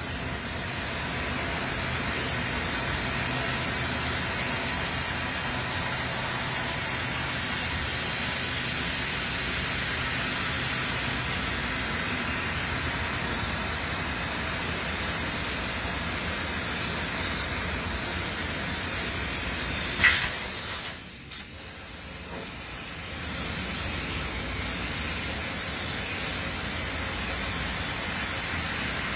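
Steady hissing noise of factory machinery. About twenty seconds in there is a brief louder burst, then a short drop in level before the hiss resumes.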